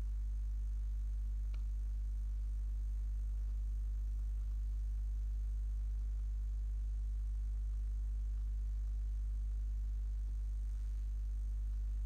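Steady low electrical hum with a faint hiss, and one faint click about a second and a half in.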